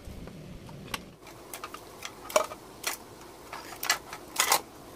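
Irregular light clicks and plastic taps as a refrigerator's inverter control board is worked loose and lifted out of its plastic case. There are about eight sharp clicks over the few seconds, the loudest in the middle and near the end.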